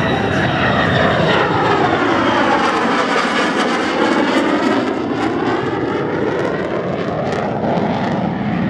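Jet noise of an F-35 Lightning II's single F135 turbofan engine as it passes overhead, a loud continuous rush with a phasing sweep that swirls down and back up about midway, easing a little as the jet pulls away.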